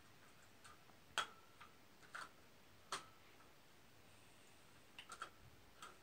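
A few sharp, light clicks over near silence, one about every second at first, then a quick cluster near the end, some leaving a brief metallic ring: wire bird-cage parts and accessories being hooked onto the bars.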